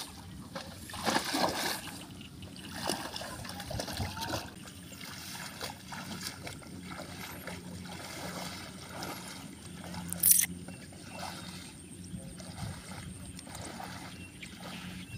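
Feet wading through shallow water and wet rice stubble, with irregular splashing steps, and a brief sharp noise about ten seconds in.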